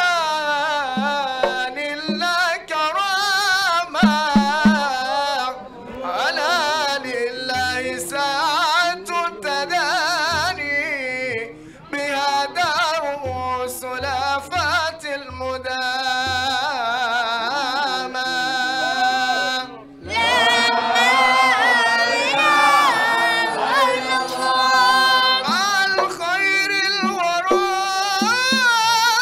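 Maulid devotional singing in praise of the Prophet: a melismatic voice with wavering, ornamented pitch, over occasional low drum beats.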